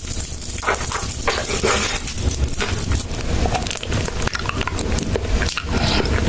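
Close-miked chewing of a Kinder Bueno wafer bar: a run of irregular crisp crunching clicks over a low rumble.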